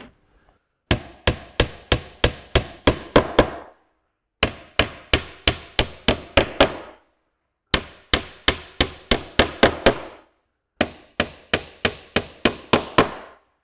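Small hammer driving 1-inch sherardized pins through plywood into a wooden beehive roof frame: four runs of quick blows, about four a second, with short pauses between runs.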